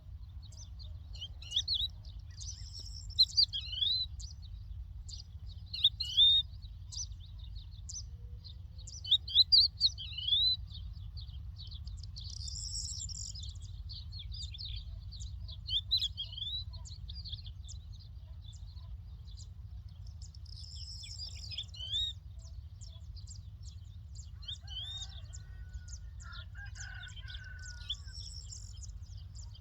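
Lark singing: a running stream of high chirps broken every few seconds by louder short falling whistles. A lower-pitched call comes in about three-quarters of the way through, over a steady low rumble.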